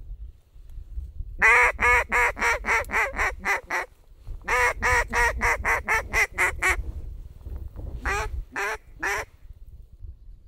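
Duck call blown in loud runs of mallard-hen quacks: about ten quick quacks, a short pause, about nine more, then three near the end, calling to a flock of ducks overhead.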